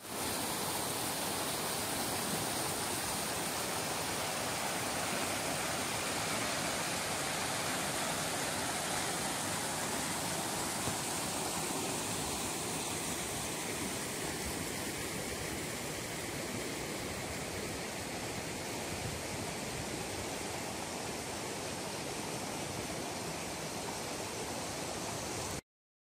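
Steady rush of river water running over rocks and small cascades, an even hiss with no other sound on top. It cuts off suddenly near the end.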